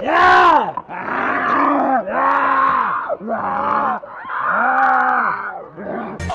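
A human voice giving five long groaning cries one after another, each rising and then falling in pitch, in a mock zombie attack.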